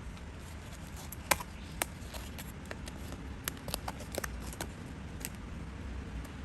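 Scattered light clicks and taps over a steady low background hum, the sharpest a little over a second in, and a quick run of them about halfway through: small paper-craft pieces being handled and set down.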